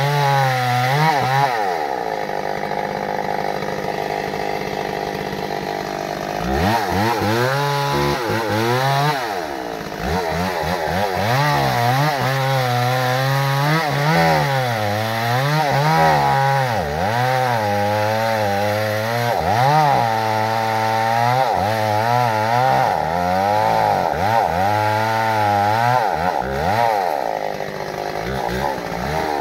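Large two-stroke chainsaw cutting into a tree trunk, its engine note repeatedly sagging and rising as the chain works under load. For a few seconds near the start it eases to a lower, steady note.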